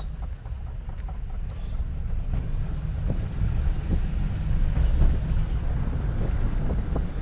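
Suzuki car driving, heard from inside the cabin: a steady low rumble of engine and road noise, with wind buffeting the microphone.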